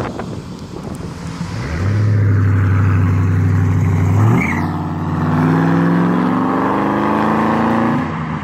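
1995 Ford Mustang GT's 5.0 HO V8 running straight-piped (mufflers removed, catalytic converters left in) under hard acceleration: a loud, low exhaust note that jumps up in pitch about four seconds in and keeps climbing until the throttle comes off near the end.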